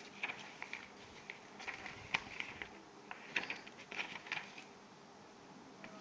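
Sheets of craft paper being picked up and handled: soft rustles and crinkles in short irregular bursts, with a few sharp clicks.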